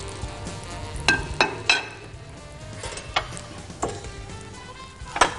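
Chicken shawarma sizzling in a frying pan as it is stirred and turned, with a few sharp clicks and knocks of utensils.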